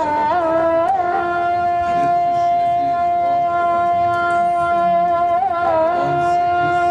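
Solo melody in a Middle Eastern style: ornamented turns at the start, one long held note for about four seconds, then another ornamented turn before it fades near the end.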